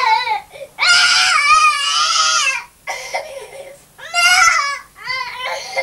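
A small child crying in loud, high-pitched wails: one long wail about a second in, then shorter sobbing cries after it.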